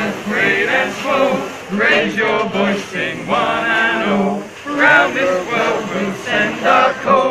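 Male voices singing together, a chant-like song in short phrases.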